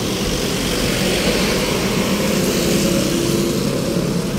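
A motor vehicle's engine running close by, a steady hum with road hiss that grows a little in the middle.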